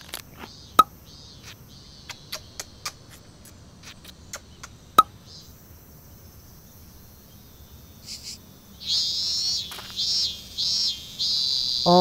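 Cicada buzzing in several loud, high-pitched pulses, starting about nine seconds in. Before it come a few sharp clicks and faint chirps.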